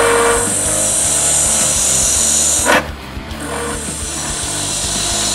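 Lathe spinning an acrylic duck call insert blank while a hand-held turning tool cuts into it: a steady hissing scrape as ribbons of plastic peel off. The cut breaks off with a sharp click just under three seconds in, then picks up again.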